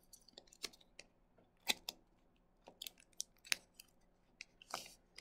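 Plastic wrapper of a baseball card pack crackling as it is handled and opened by hand: scattered sharp, faint crackles and clicks, with a short rustle just before the end.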